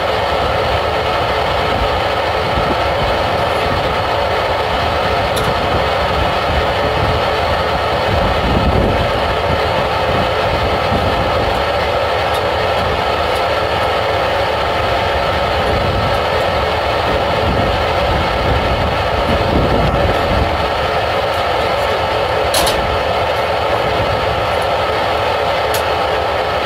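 Steady drone of running machinery, holding many constant tones at an even level, with a couple of sharp clicks, one about five seconds in and one near the end.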